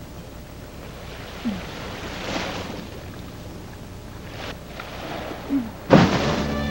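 Waves washing on a shore: a steady soft hiss that swells twice. Near the end, loud film music comes in suddenly.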